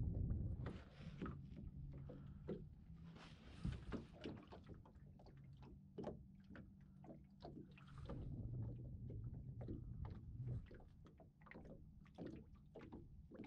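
Water lapping and slapping against the hull of a small fishing boat, with light knocks and clicks. A low steady hum runs underneath and stops about ten seconds in.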